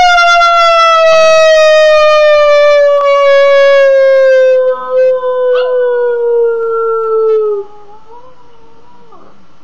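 A person howls to coax a pug into howling along: one long, loud howl that slides slowly down in pitch for about seven and a half seconds and then breaks off, followed by a fainter, wavering howl.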